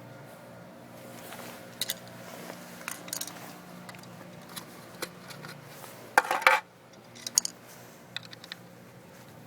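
Small metal parts and tools clicking and clinking while a Honda VT500C starter relay is taken apart, with a louder rattling scrape about six seconds in, over a faint steady hum.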